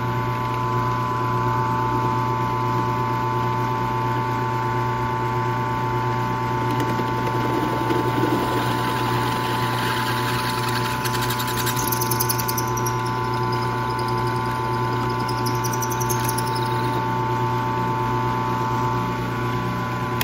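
Benchtop drill press running with a steady motor hum as a quarter-inch bit drills through the aluminium spar doubler and spar. The cutting noise swells about halfway through.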